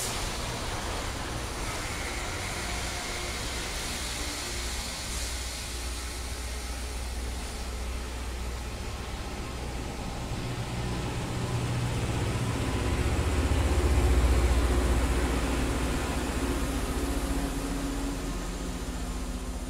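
Loram rail grinder train rolling past, its diesel power cars running with a steady low drone. The drone swells to its loudest about two-thirds of the way through as a power car goes by, then eases as the cab car at the end passes.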